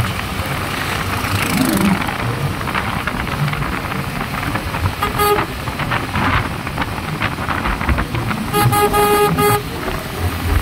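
Wind and road rush from a motorcycle in motion, with a horn beeping: one short beep about five seconds in, then a rapid string of beeps near nine seconds.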